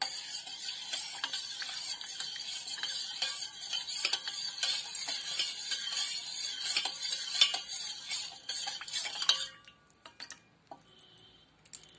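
Steel spoon stirring a thin yogurt mixture in a stainless-steel bowl, scraping and clinking against the bowl's sides and bottom. The stirring stops about nine and a half seconds in, leaving only a few faint taps.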